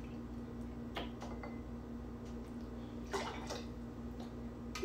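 Lemon juice poured into a metal jigger and the jigger tipped into a glass: faint liquid trickle and a few light clicks and clinks, the clearest a little after three seconds in, over a steady low hum.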